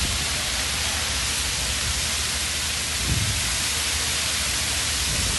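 Many jets of a large dancing fountain spraying and their water falling back, a steady hiss like heavy rain, with a low rumble underneath and a brief low bump about three seconds in.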